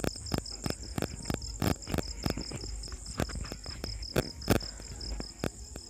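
Crickets chirping steadily in the background, a fine high trill, with scattered sharp clicks a few times a second.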